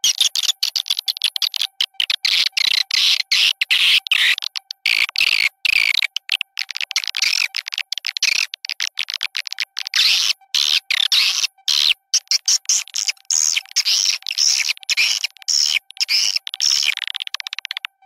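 Swiftlet lure call (suara panggil walet): rapid, chattering swiftlet twitters played in quick chopped bursts with many short gaps, the kind of recording used to draw swiftlets into a bird house. A faint steady tone runs underneath.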